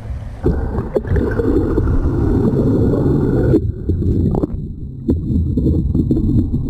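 Muffled underwater rushing and gurgling from a camera dunked under the sea surface, starting abruptly about half a second in, with a few dull knocks.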